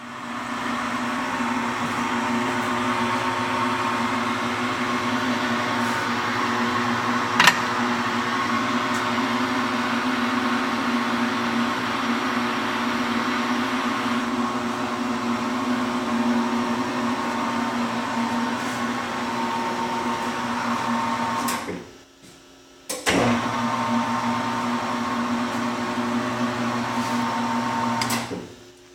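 South Bend metal lathe running under power, a steady motor-driven hum with one sharp click about a quarter of the way in. It is switched off about three-quarters through, started again a second or so later, and switched off near the end.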